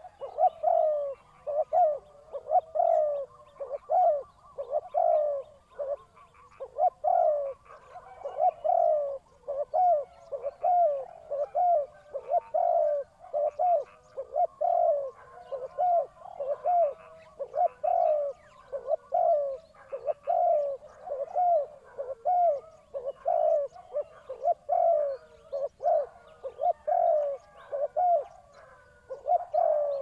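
Spotted dove cooing: an unbroken run of low, rising-and-falling coo notes, about one and a half a second.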